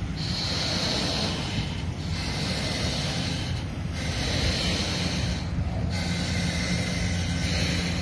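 Wind buffeting the microphone over choppy harbour water, with a hissing wash of water that swells and drops back about every two seconds.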